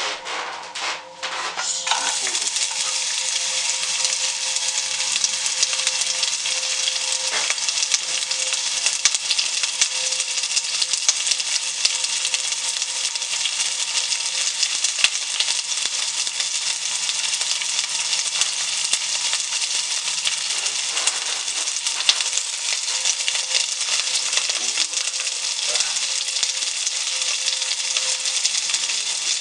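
A few knocks as food goes into a hot frying pan, then steady sizzling and crackling of food frying in the pan.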